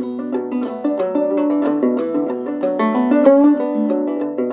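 Acoustic string-band music without singing: plucked string instruments play a quick run of notes.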